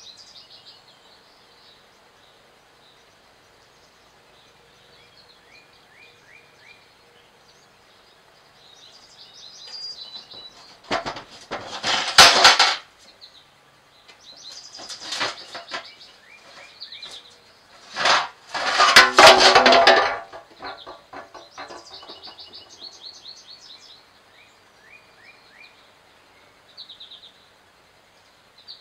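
Galvanized steel trash-can lid rattling and clanking in two loud bursts as a squirrel works it loose and off the can. Small birds chirp in short repeated runs behind it.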